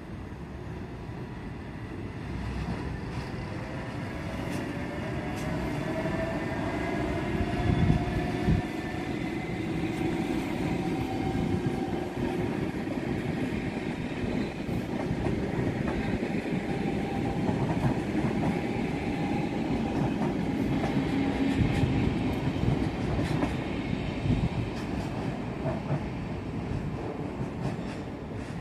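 Vy Class 69 electric multiple unit pulling away, its traction motors whining and rising in pitch as it gathers speed, with the wheels rumbling and clattering over the rails. There is one heavier clunk about eight seconds in.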